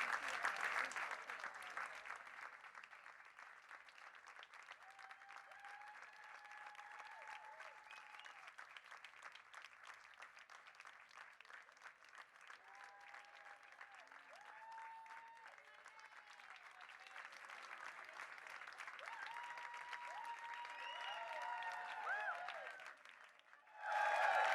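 Small audience clapping and cheering at the end of a live set. The clapping is loud at first and thins out within a couple of seconds. It carries on more quietly with scattered shouts, swells again, drops out briefly near the end, then returns loud with cheering voices.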